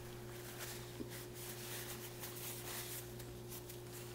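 Paper napkin rubbing and rustling against the mouth in soft, uneven strokes, over a steady low electrical hum, with a small click about a second in.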